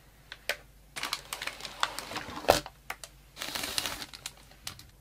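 Inflatable air-column plastic packaging crinkling and crackling as it is handled and opened, in an irregular run of sharp clicks and rustles with one louder snap about halfway.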